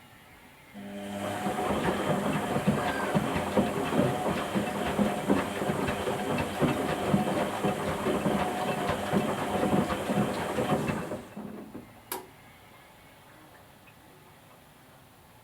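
Whirlpool Indiana 1400 washing machine drum turning during its wash phase, with water sloshing and the ducks knocking and clattering in the drum over a steady motor hum. It runs for about ten seconds, then stops for the pause between drum turns, followed by a single sharp click.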